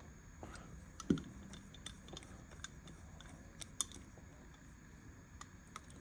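Small metal clicks and taps of Remington New Model Army revolver parts being handled and fitted during reassembly, with a louder knock about a second in.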